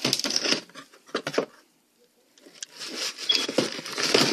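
Cardboard shoebox being opened and the paper wrapping inside rustled and pulled aside. The crinkling comes in two stretches, with a short quiet gap about two seconds in.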